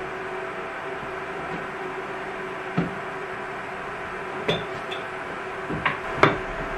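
A handful of short knocks and clinks of kitchen utensils or dishes on hard surfaces, unevenly spaced, the sharpest near the end, over a steady low hum.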